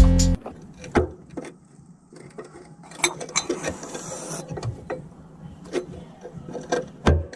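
Background music cuts off just after the start. Then come scattered metallic clicks and knocks of hand tools working loose the worn gearshift linkage parts of a Volkswagen Kombi, with a scratchy noise lasting about a second and a half about three seconds in and a heavier knock near the end.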